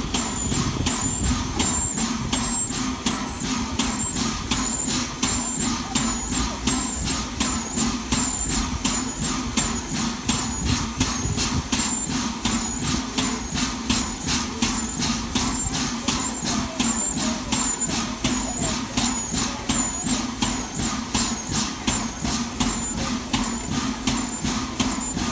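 Royal Scot class steam locomotive No. 46100 standing at rest in steam, hissing steadily over a low hum. Its sound pulses evenly at about two to three beats a second.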